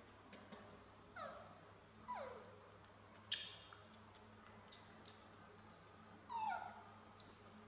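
Baby macaque giving three short cries that slide down in pitch, with a sharp click about three seconds in and a few faint ticks.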